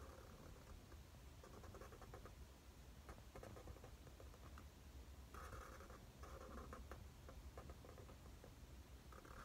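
Faint scratching of a felt-tip marker on paper as handwriting is done, in short strokes with brief pauses between them, over a low hum.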